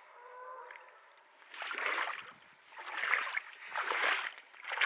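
Small waves lapping and splashing at the freshwater loch's edge, coming in soft surges about a second apart after a quiet first second or so.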